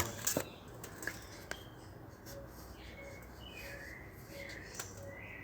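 Quiet room with a few soft clicks and rustles of small objects being handled.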